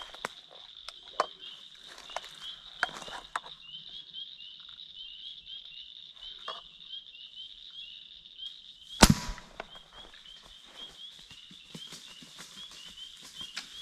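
Steady night chorus of calling frogs and insects: a high-pitched, regular chirping at several chirps a second that runs on without a break, over scattered light rustles and steps in dry leaf litter. About nine seconds in comes one sharp, loud crack.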